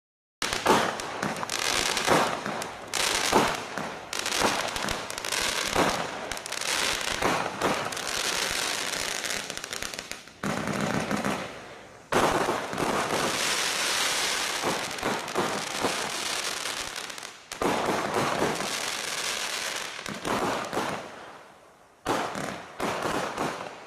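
A 53-shot fan barrage fireworks cake firing: rapid launches and bursts run together in several waves. It starts suddenly, with a short lull shortly before the end.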